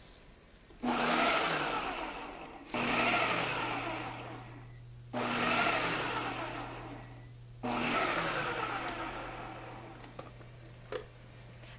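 Ninja food processor pulsing four times, each burst of motor and blades starting abruptly and winding down over a couple of seconds, as it chops a handful of collard greens into pesto.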